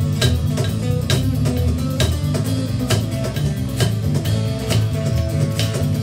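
Live band playing an instrumental jam: electric bass, a banjo and a cajon keeping a steady beat of about two strikes a second.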